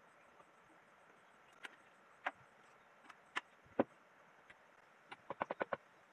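Light knocks and taps of wood being handled on a wooden table-saw sled: a folding ruler set down and a log section placed against the fence. There are a few separate knocks, the loudest nearly four seconds in, and then a quick run of about seven clicks near the end.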